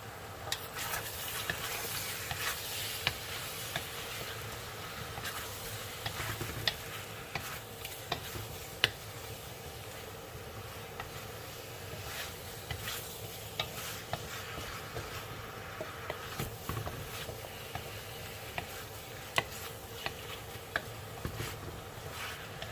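Chicken wings sizzling in a pan with garlic, onion and ginger while being stirred, with scattered short clicks and taps of the utensil against the pan.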